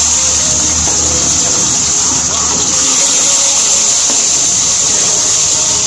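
Whole fish frying in hot oil in a nonstick wok: a loud, steady sizzle.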